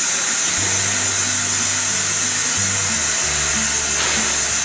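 Steady, loud rushing hiss of workshop machinery, like blowing air. Underneath it, music plays with low bass notes changing every half second or so.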